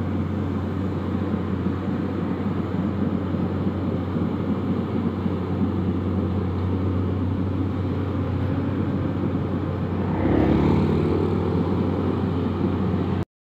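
Pindad Excava 200 excavator's diesel engine idling steadily, with a motorcycle passing close by about ten seconds in. The sound cuts off suddenly near the end.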